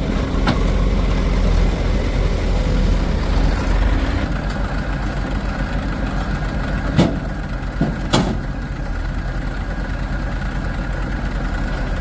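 Diesel engine of earth-moving or farm machinery running steadily, with a few sharp knocks about seven to eight seconds in.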